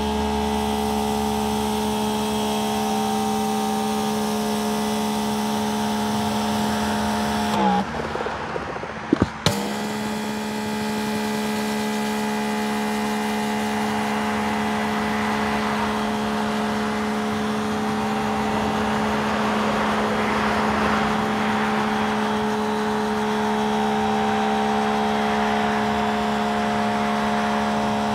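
Greenworks GPW3000 brushless electric pressure washer running with a steady whine, over the hiss of water sprayed through a rotating surface cleaner onto concrete. About eight seconds in the whine winds down and drops out for a second or two, then starts again with a sharp click.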